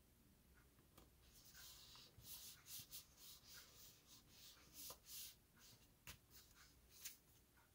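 Faint rustling and rubbing of cardstock as hands press and smooth a patterned paper panel down onto a kraft card base, with a few soft taps.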